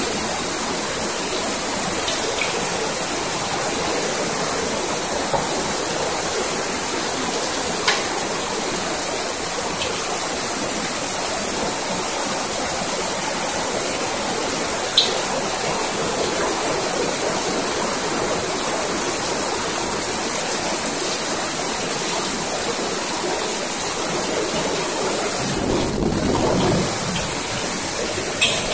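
Steady hiss of fried rice frying in a wok over a gas burner, with a few sharp clinks of the metal spatula against the wok.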